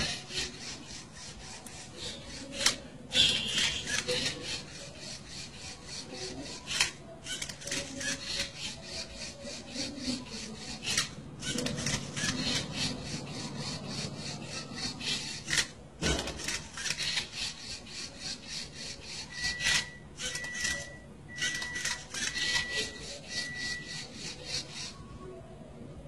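LEGO Mindstorms Rubik's Cube-solving robot turning and flipping the cube: a steady run of rapid plastic rasping and clicking, broken by brief pauses. A row of five short beeps comes in the last third.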